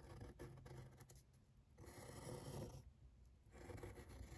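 Faint scratching of a mechanical pencil drawing lines on paper, in three soft strokes of about a second each.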